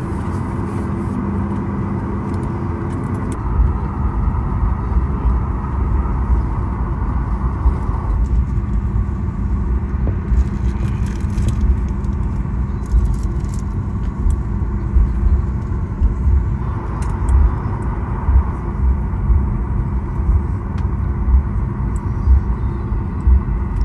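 Cabin noise of a Boeing 737 MAX 9 taxiing after landing: a steady engine hum over a low rumble. About three seconds in the rumble gets heavier and bumpier, swelling and dipping unevenly.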